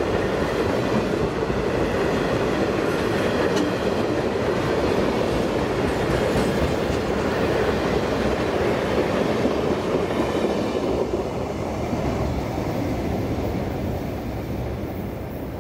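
Hopper wagons of a freight train rolling past on steel rails, their wheels running steadily on the track; the sound starts to fade a few seconds before the end as the last wagon moves away.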